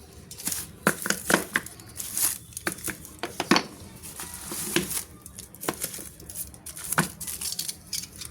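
Packaging being handled and torn open: irregular crinkling and tearing, broken by many sharp clicks and rattles.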